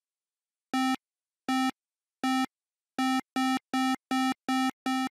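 Retro 8-bit style synthesized beeps, all at one low-middle pitch: three spaced out, then speeding up to about three a second.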